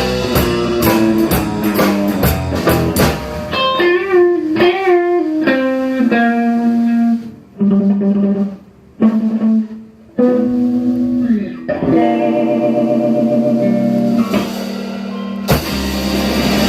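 Electric guitar solo in a rockabilly song, single notes with string bends and held notes. It stops briefly twice midway, and the fuller band sound comes back near the end.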